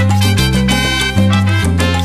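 Background music: an upbeat salsa track with a steady bass line, brass and percussion.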